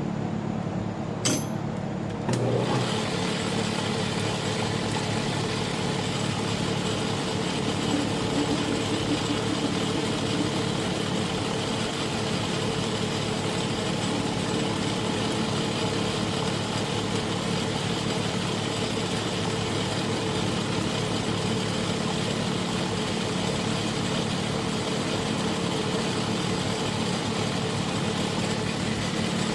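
Small metal lathe running steadily with a motor hum. There is a short click about a second in, and about two seconds in the sound steps up and stays steady.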